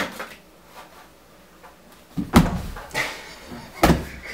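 Two heavy thuds on a hardwood floor, the first about two seconds in and the second near the end, with a sharp click at the very start.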